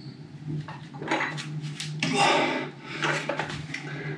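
Iron plates of a plate-loaded dumbbell clinking against each other as it is rowed up and down, with several hard breaths from the effort.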